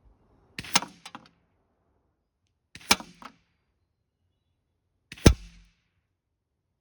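Daisy 901 multi-pump air rifle being pumped: three sharp clacks of the pump lever about two seconds apart, each followed by a lighter click, the last the loudest.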